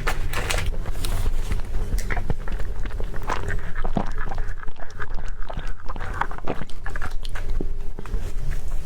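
Close-miked eating sounds: irregular biting, chewing and mouth clicks as food is eaten.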